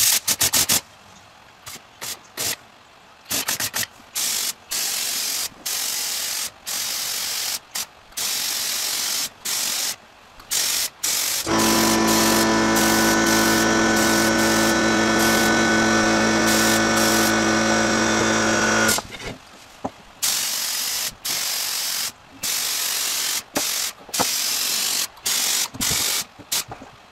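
Gravity-feed air spray gun hissing in short bursts as the trigger is pulled and released, laying primer into the edges of a door's recessed panels. About halfway through it sprays without a break for roughly seven seconds, louder, with a steady hum under the hiss.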